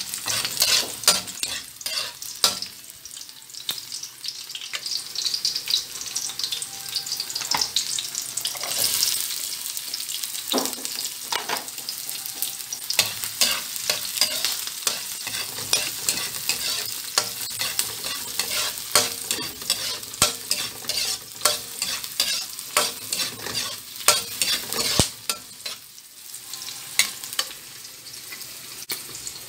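Ginger, garlic and onion sizzling in hot oil in a metal pan, with a spoon scraping and clicking against the pan at an irregular pace as they are stirred.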